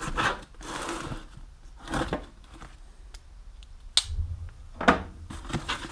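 Packing tape being cut and ripped off a cardboard shipping box: a run of short scrapes and tearing noises, with a sharp click about four seconds in and the loudest rip just before five seconds.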